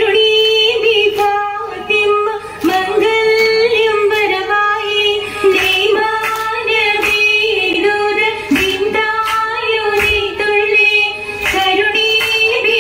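Girls' voices singing a Mappila song together for an Oppana dance, accompanied by rhythmic hand claps roughly every half second.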